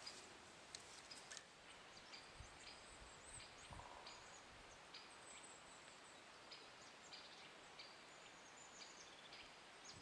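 Quiet woodland ambience: faint, high, short bird chirps and calls scattered over a soft background hiss.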